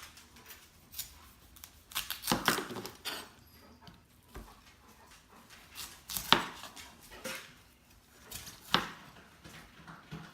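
Knife chopping broccoli on a cutting board: a few irregular, widely spaced knocks of the blade against the board, with a quick cluster of strokes a couple of seconds in.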